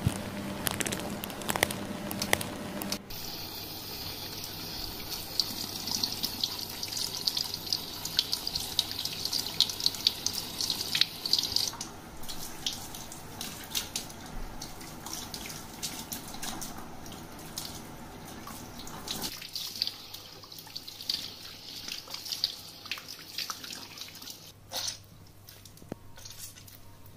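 Water from a handheld shower sprayer rinsing long hair over a salon shampoo basin: a steady hiss of spray with splashing. In the last few seconds it turns quieter, to drips and water splashing into the basin as the wet hair is squeezed out.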